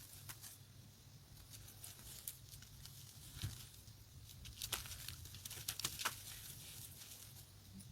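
Pressed pink gym chalk being crushed: faint, scattered crunching and crumbling crackles, with a few sharper cracks around the middle.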